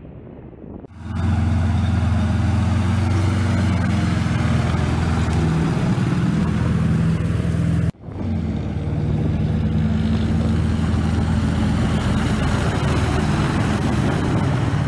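PzH2000 self-propelled howitzer on the move: its diesel engine runs loudly and steadily with a deep hum, along with its tracks. A fading rumble fills the first second, and the sound breaks off briefly about eight seconds in.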